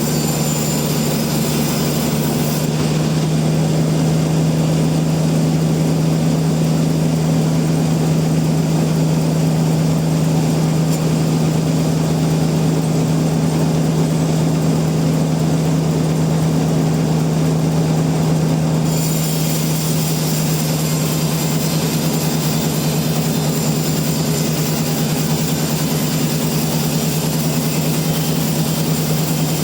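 Sawmill machinery running steadily, a loud constant low hum with a noisy wash over it.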